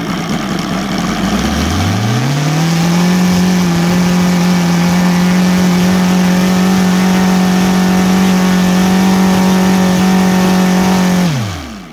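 OS Sirius 7 FR7-420 seven-cylinder four-stroke radial engine, converted to run on gasoline with CDI ignition, spinning a large propeller. It revs up from idle over about a second and a half, holds a steady high speed, then drops quickly back toward idle near the end, a run-up to check the top end on gasoline.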